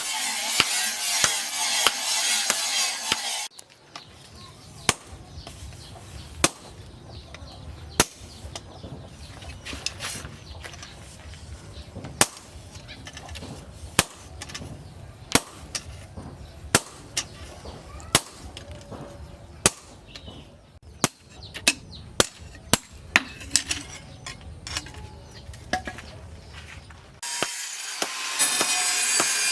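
A hand tool scraping steel in dense, steady strokes for the first few seconds and again near the end. In between, single sharp hammer blows on steel land every second or two, with lighter taps among them.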